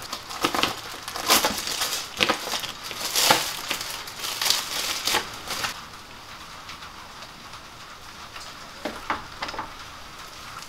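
Plastic packaging crinkling and crackling as a small paint roller set is unwrapped, busy for the first five or six seconds, then only a few light handling clicks.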